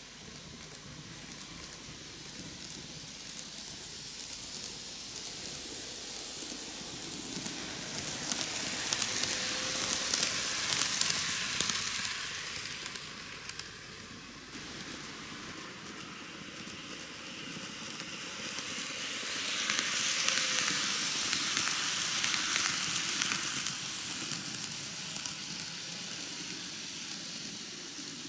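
N-gauge Micro Ace Seibu 4000 series model train running on its track: a fine rattle and hiss of small wheels on the rails with a faint motor whine. It grows louder and fades away twice as the train passes close.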